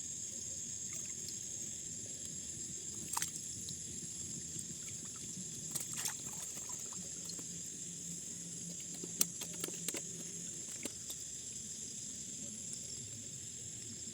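A steady high-pitched chorus of night insects, with a few brief water splashes and trickles at about 3, 6 and 9 to 10 seconds in.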